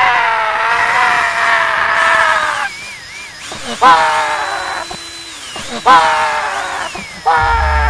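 A man crying out in long, wavering wails again and again, while a cordless power drill whines, its pitch dropping each time it slows.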